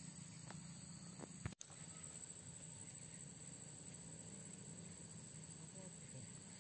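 Insects chirring in a steady high-pitched drone over a low background hum, briefly cut off about one and a half seconds in.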